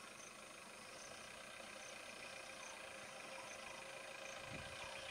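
Safari jeeps' engines running faintly as the vehicles creep slowly along a dirt track, a steady low-level hum with faint chirps over it.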